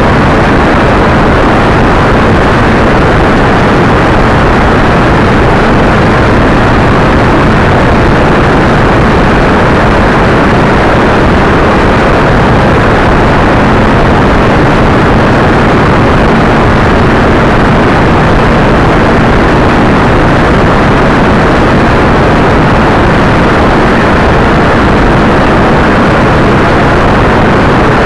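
Heavy wind rush and road noise on a motorcycle-mounted camera at highway speed, loud and unbroken, with a low steady engine hum underneath.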